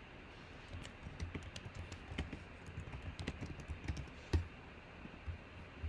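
Typing on a computer keyboard: a run of irregular key clicks lasting about three and a half seconds, with one louder click a little after four seconds in, then a couple of scattered taps.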